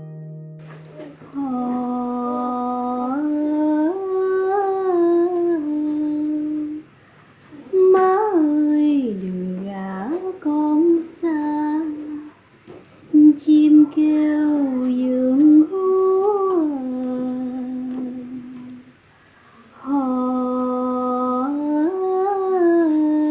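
A woman humming a slow lullaby: long held notes that step up and down in pitch, in phrases broken by short pauses. A few short sharp clicks sound around the middle.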